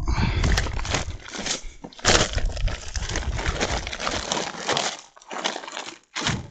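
A sack holding a freshly caught pike handled and set down in an inflatable boat: rustling and knocking close to the microphone, with a short pause near the end.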